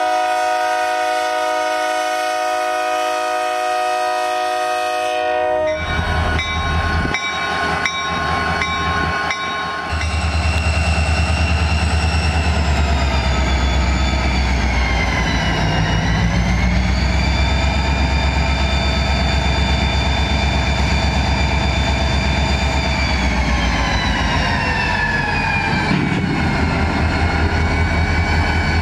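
Diesel freight locomotive sounding its horn in one long chord for the first five seconds or so. Then, after a cut, the locomotive passes close with its engine running under load: a loud deep rumble with a high whine that dips and rises.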